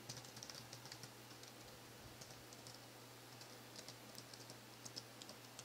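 Faint, irregular key taps on an ASUS K60I laptop's keyboard as someone types test text, over a faint steady low hum.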